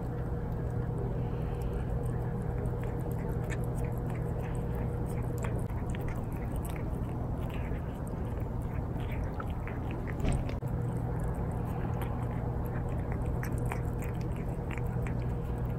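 Calico cat eating soft wet cat food from a bowl: many small, irregular wet chewing and lapping clicks over a steady low hum, with a single louder knock about ten seconds in.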